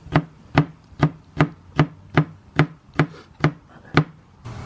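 Kitchen knife chopping against a cutting board: about eleven sharp, even strokes a little over two a second, stopping near the end.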